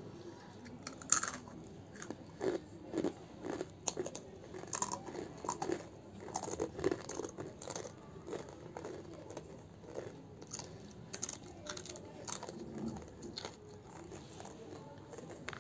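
Crunchy red stick-shaped crisps being bitten and chewed by two people, a run of irregular crunches close to the microphone. The loudest bites come about a second in, and the crunching grows sparser and quieter toward the end.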